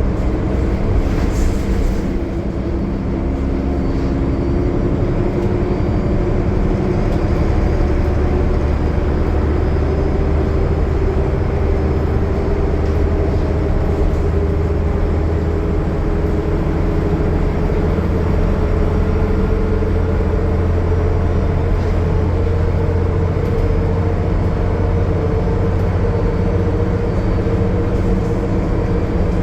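Cummins ISL9 diesel of a Gillig Low Floor transit bus pulling steadily at highway speed over a deep drone of engine and road noise, its tone slowly rising in pitch.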